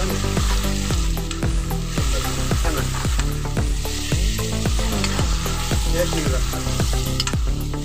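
Buffalo meat sizzling as it fries in an iron kadai, stirred and scraped with a metal ladle and spatula. Background music with a repeating bass line plays under it.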